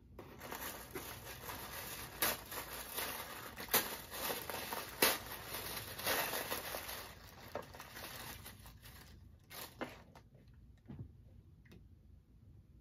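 Tissue paper rustling and crinkling as it is pulled open by hand inside a cardboard box, with a few sharper crackles. After about eight seconds it thins to a few scattered crackles and then stops.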